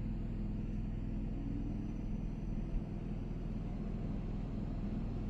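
Generator running steadily, a low even hum; the rooftop air conditioner on low fan is drowned out by it.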